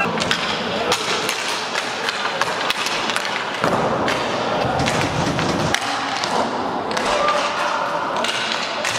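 Live inline hockey play: repeated sharp clacks and thuds of sticks and puck, with voices of players and spectators.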